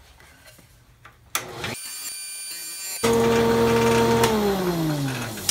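Jointer motor starting a little over a second in and running with a steady whine that gets louder about halfway through, then switched off and winding down, its pitch falling steadily to the end.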